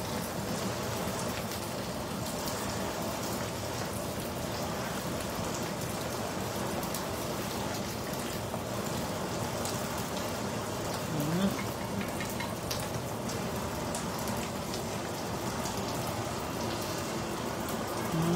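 Dried fish pieces frying in hot oil in a pan: a steady sizzle with scattered tiny pops. A brief low rising tone sounds about eleven seconds in and again at the very end.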